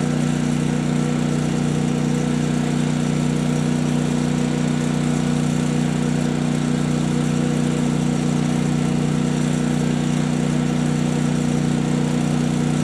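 Portable generator and air compressor running steadily: a constant engine drone with an even low hum that does not change.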